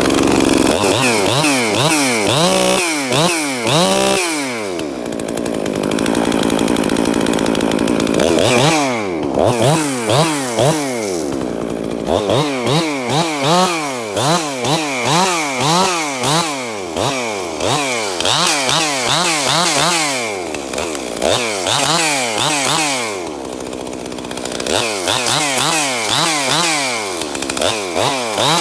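Ported Husqvarna 262XP two-stroke chainsaw being revved in quick repeated blips, the engine pitch climbing and dropping sharply about twice a second, with a few short stretches of steadier running between. It is running just after reassembly, with a ring the owner says is worn and gives low compression.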